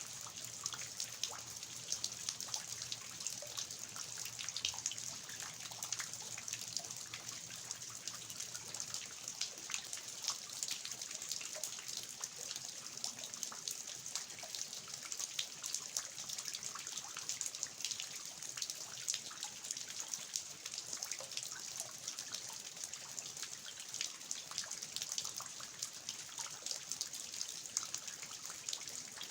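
Steady rain on a garden, a dense patter of fine drops over a hiss, with water dripping from the eaves of a traditional house.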